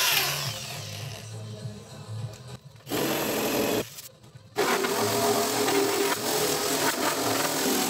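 Corded electric drill spinning a 3M coral abrasive disc against a painted steel car door, grinding off paint and surface rust. A loud burst of grinding opens it, a shorter run comes about three seconds in, then a brief stop, then steady grinding with the drill motor's hum from about four and a half seconds on.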